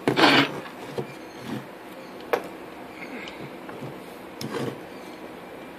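Handling noise from a circuit board and tools on a wooden workbench: a short rustling scrape at the start, then a few light clicks and knocks, over a faint steady hum.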